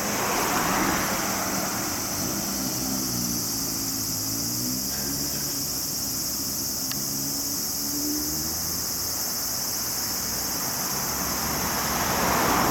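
Road traffic with cars passing close by near the start and again near the end. In between, a motorcycle's inline-four engine (a 2015 Suzuki GSX-S1000 with an LCI full-titanium exhaust) is heard further off, its pitch rising and falling as it is ridden. A steady high insect hiss runs underneath.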